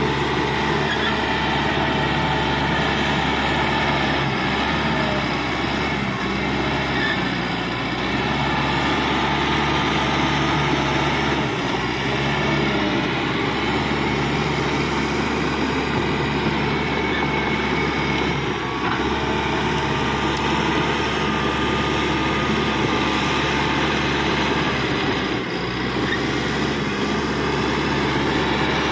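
Caterpillar D5K XL crawler bulldozer working, its diesel engine running steadily, with thin wavering squeals from the running gear over it.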